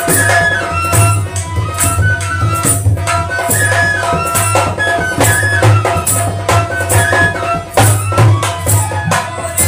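Himachali nati folk music: a harmonium plays a stepping melody over a steady dholak beat, with sharp percussion strikes at a regular pulse.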